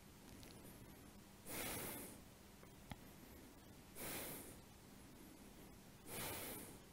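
A man breathing deeply and steadily while holding a yoga pose: three breaths about two seconds apart, with a faint click just before the second.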